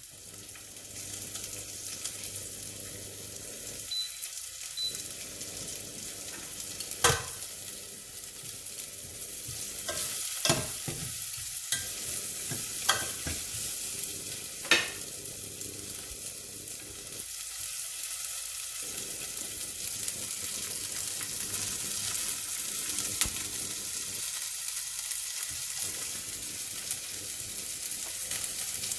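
Food sizzling as it fries in a pan, stirred now and then, with a handful of sharp clicks from the utensil striking the pan.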